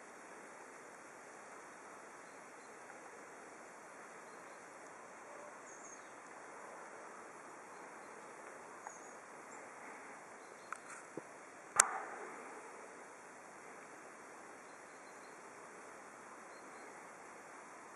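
Faint steady outdoor background hiss, with a couple of faint high chirps. A few small clicks come just before one sharp click about twelve seconds in, the loudest sound, which dies away briefly.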